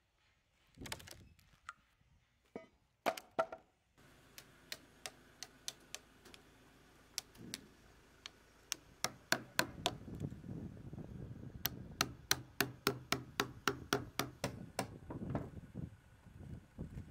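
Hammer striking a steel chisel to cut out rotten wood from a wood slab: sharp, ringing taps, a few at first and then a quick run of about three a second. A low steady hum sits underneath from about halfway through.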